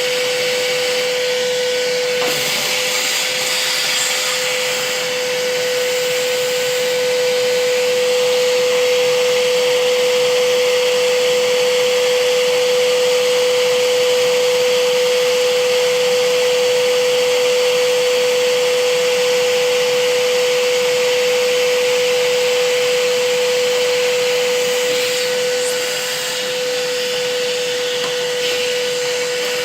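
Vacuum running steadily: a constant motor whine over an even rushing hiss.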